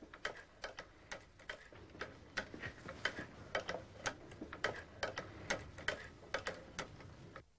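Cobbler's leather-sewing machine mechanism ticking and clicking as its cam is turned, a rapid, uneven run of small metal clicks that stops abruptly near the end.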